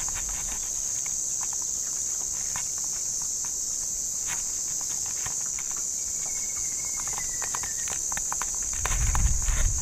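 Steady high-pitched drone of insects, with scattered light clicks and taps over it and a low rumble coming in near the end.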